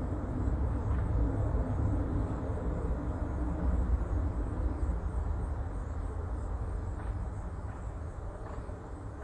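Steady rumble of road traffic, with a faint high buzz of cicadas above it.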